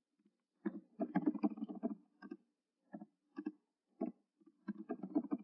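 Typing on a computer keyboard: irregular runs of keystrokes with short pauses between them as a line of code is entered.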